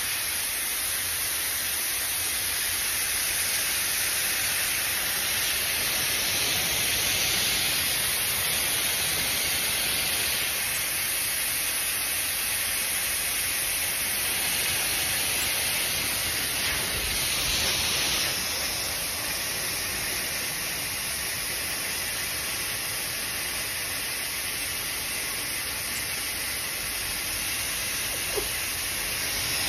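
A steady, even hiss of white noise, with one faint click near the end.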